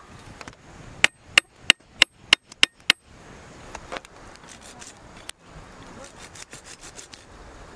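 Seven sharp strikes in quick succession, about three a second, starting about a second in, followed by fainter scattered knocks and scraping.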